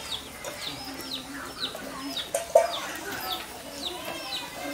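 Bird calls: a run of short, high peeps, each falling in pitch, about two a second, with one louder, lower call about two and a half seconds in.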